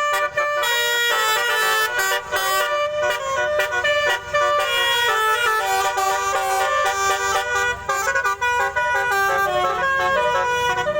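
Indonesian bus 'telolet' musical horn, a multi-trumpet horn set, playing a fast tune of short stepping notes with several tones sounding together and a few brief breaks.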